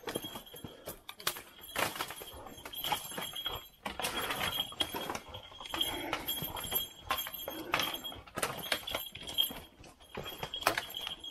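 Footsteps crunching through dry bamboo leaf litter, with irregular cracks and knocks of dead bamboo canes being stepped on and pushed aside.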